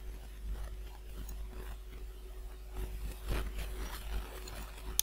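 Quiet room tone with a steady low electrical hum, faint rustling of a computer mouse being moved on the desk, and one sharp mouse click at the very end.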